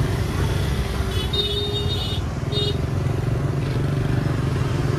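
Small motorbike and scooter engines running at low speed in slow, crowded street traffic. A horn beeps twice, a longer beep about a second and a half in and a short one just after.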